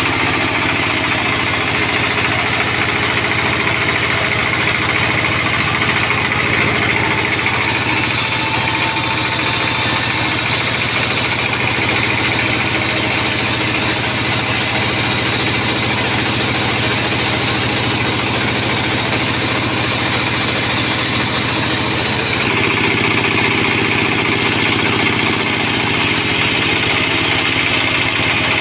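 Large sawmill band saw running steadily and cutting a sonokeling (Indian rosewood) log. The sound of the cut shifts about 7 seconds in and again about 22 seconds in as the log is fed through and repositioned.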